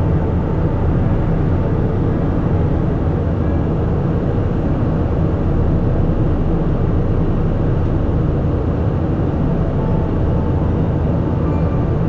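Steady rumble of jet engines and rushing air inside a jet airliner's cabin in cruise flight, with a faint steady hum.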